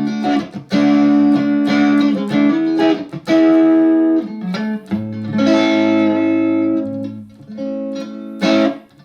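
Electric guitar played through a Valeton GP-200 modeler on a Vox amp model with the reverb off, heard through Headrush 108 active monitors in the room. It plays a run of struck chords that ring out, with short gaps at the chord changes.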